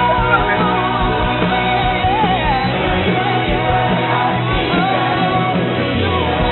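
Background music: a rock-style song with a singing voice over a steady band accompaniment.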